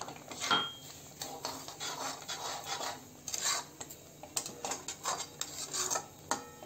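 Slotted metal spatula scraping and clinking against a metal wok while stirring a thick mixture of reduced milk, grated coconut and sugar, in irregular strokes with sharper clinks.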